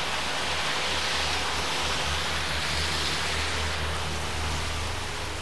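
Heavy downpour of rain, a steady dense hiss, with a steady low rumble underneath.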